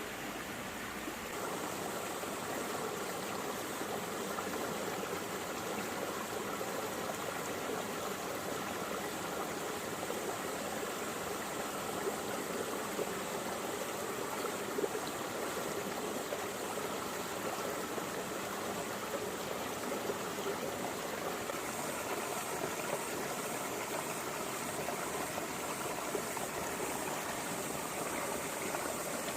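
Small stream running over stones and rocks, a steady rushing and babbling of water with little splashes.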